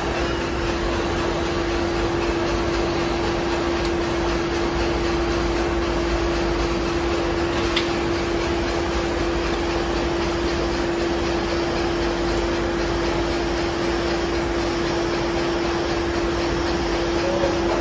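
Vertical milling machine running: a steady mechanical whir with one constant mid-pitched hum over it.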